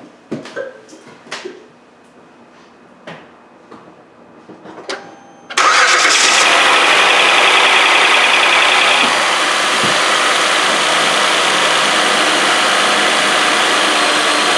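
A few light clicks and knocks, then about five and a half seconds in the 2012 Hyundai Santa Fe's 3.5-litre V6 starts and settles into a steady idle. Its accessory belt runs on a newly fitted tensioner and idler pulley. The buzz that a worn idler pulley used to make is gone, and the belt drive is nice and quiet.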